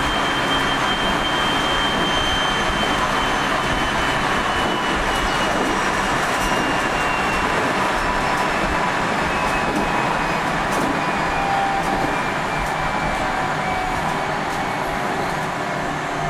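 Onboard running sound of a JR Central 373 series electric multiple unit car (KuMoHa 373-11): steady wheel and rail noise under thin whining tones from the drive that slowly fall in pitch as the train slows. This car is known for an unusual, abnormal running noise.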